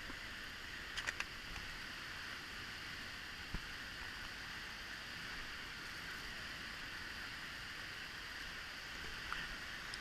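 Steady rushing noise of the Salto del Agrio waterfall, with a few faint clicks about a second in and a single low knock a little later.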